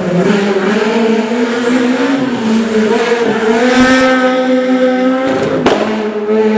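Peugeot 208 rally car's four-cylinder engine running at high revs under hard acceleration, the note dipping briefly and then climbing again, with one sharp crack about two-thirds of the way through.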